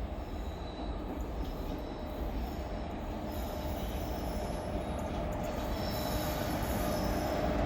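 Goods train hauled by a WAG-7 electric locomotive running along the track, growing steadily louder.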